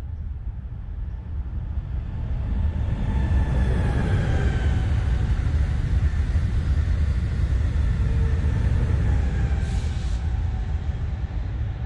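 An Amtrak Acela high-speed trainset passes at speed: the rumble and rush of its wheels on the rails builds, holds loud through the middle and eases off near the end. A faint whine drops in pitch as the train goes by, and there is a brief hiss near the end.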